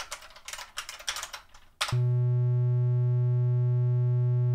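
Typing on a computer keyboard for about two seconds, then a computer-generated 123 Hz triangle-wave tone starts suddenly and holds steady as a low, buzzy hum.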